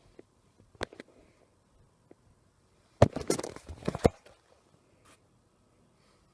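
Handling noise: a couple of sharp clicks, then a short cluster of knocks and rattles lasting about a second, as hardware or the camera is moved and set down.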